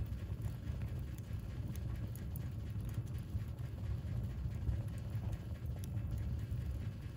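Wood fire burning in a fireplace, crackling and popping irregularly over a steady low rumble.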